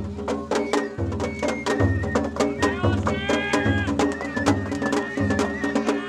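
Japanese festival hayashi music: taiko drums beating quickly and steadily, several strikes a second, under a high bamboo flute melody.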